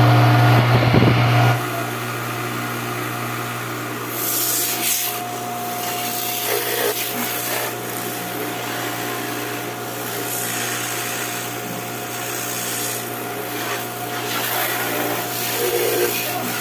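Stihl RE 98 electric pressure washer running on test with a steady motor hum that drops in level about a second and a half in. Short bursts of hiss come and go over it.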